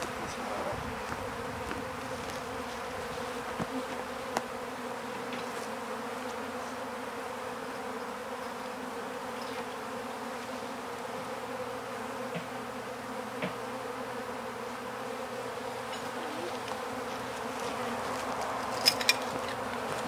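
Steady, even hum of honey bees flying about their hive, a hive the beekeeper calls kind of quiet. A few faint knocks come near the end.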